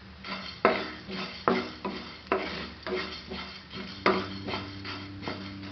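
A spatula stirring coriander seeds as they dry-roast in a pan, scraping against the metal in repeated strokes a little over two a second.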